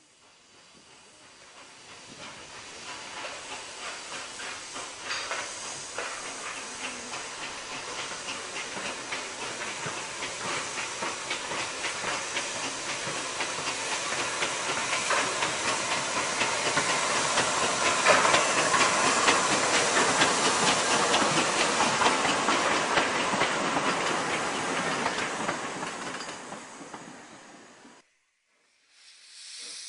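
Furness Railway No 20, a Victorian 0-4-0 steam locomotive, working a train past: steam hiss over a quick, regular beat of exhaust, growing louder as it approaches and fading as it draws away. The sound cuts off suddenly near the end.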